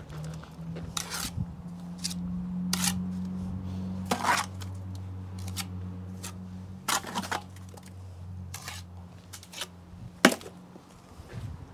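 Steel trowel scraping and clinking against a brick as mortar is buttered onto it: a handful of short, sharp scrapes and clicks a second or more apart. Under them is a low steady hum that fades out about nine seconds in.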